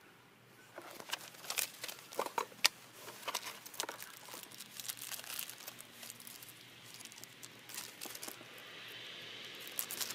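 A small plastic bag of valve adapters being handled, crinkling in a run of irregular sharp crackles that are loudest in the first few seconds.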